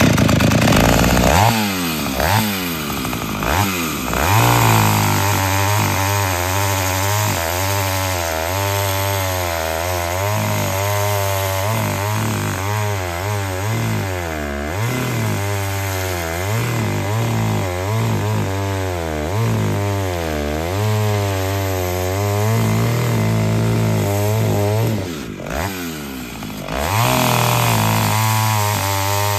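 Taiga 245 two-stroke gasoline chainsaw running, starting abruptly and revving up and down over and over. Its pitch dips briefly near the end, then climbs again.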